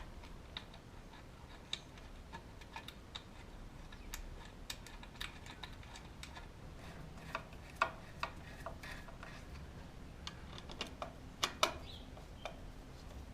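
Irregular light clicks and taps of a motorcycle chain guard being fitted back on, with a few sharper knocks about eight and eleven and a half seconds in.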